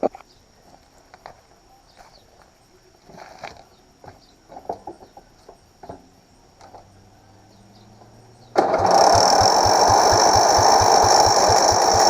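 Small knocks and clicks, then about eight and a half seconds in, the Ariens YT11 lawn tractor's engine is cranked by its electric starter: a loud, even chugging of about seven compression pulses a second with a high starter whine, without the engine catching.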